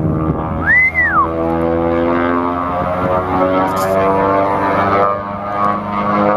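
Beechcraft Twin Beech (Model 18) on a low pass, its two Pratt & Whitney R-985 radial engines and propellers giving a steady, loud drone as it approaches. A short tone rises and falls about a second in.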